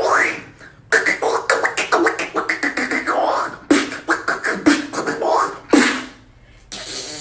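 Mouth beatboxing: a fast run of percussive clicks, kicks and snares with a few quick rising vocal sweeps, breaking off briefly a little after six seconds.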